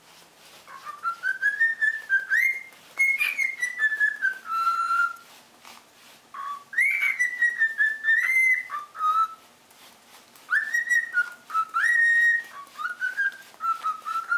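Lutino cockatiel whistling a warbling song in several phrases of rising and falling notes with brief pauses between them. It is a courtship song, which the owner takes for a sign that the bird is in heat.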